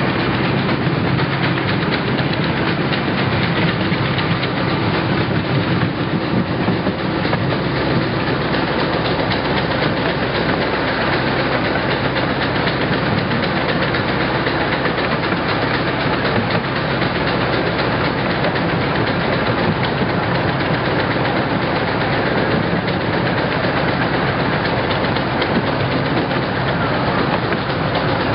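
Small open-car park train riding along its track: steady running noise of the wheels on the rails and the cars rattling, heard from on board.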